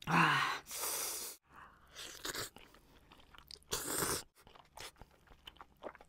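Close-miked eating of very spicy stir-fried noodles. There is a loud breathy rush at the start, a second long slurp about four seconds in as a mouthful of noodles goes in, and small wet chewing clicks in between and afterwards.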